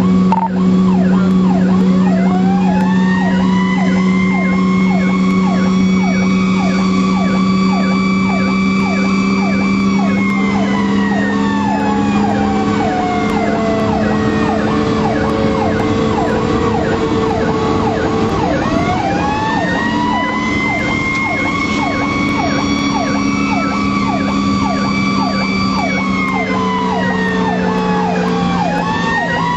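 Fire engine's sirens sounding during an emergency response, heard from the engine itself. A fast, repeating yelp runs under a slow wail that rises, falls away around the middle, and climbs again near the end.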